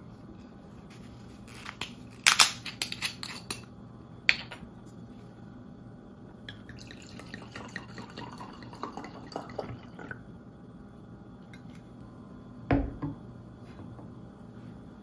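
Red wine poured from a bottle into a stemmed wine glass, running and splashing for a few seconds about halfway through, after a cluster of sharp clicks as the bottle is handled at its neck. Near the end the bottle is set down on a wooden table with a single knock.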